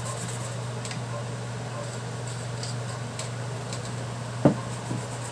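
Light metallic ticks and clinks of a screwdriver driving small screws into the metal case of a car engine ECU, with one sharp knock about four and a half seconds in and a softer one just after. A steady low hum runs underneath.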